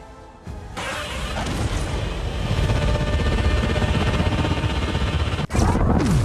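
Godzilla sound effect: a dense, noisy sound that swells from about a second in, cuts off suddenly near the end, and is followed at once by another loud effect.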